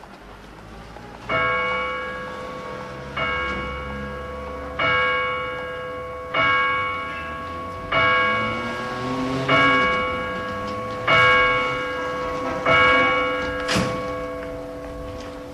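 A single bell struck eight times, about once every second and a half, each stroke ringing on and slowly fading into the next.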